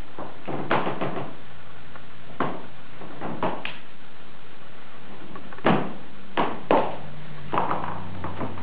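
Scattered knocks and thuds, about eight irregularly spaced, over a steady hiss, with a faint low hum coming in near the end.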